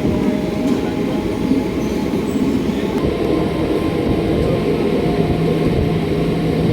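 Train running, a steady loud rumble with a faint low hum.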